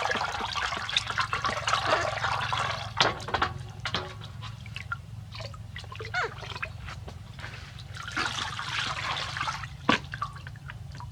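Water being poured and splashed during a pet monkey's bath: a spell of splashing at the start, scattered drips and splashes, then a second spell about eight seconds in.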